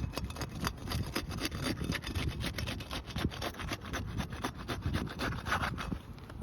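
Asphalt shingles being pried up to break their adhesive seal strips: a fast, irregular run of crackling and scraping, over a low rumble of wind on the microphone.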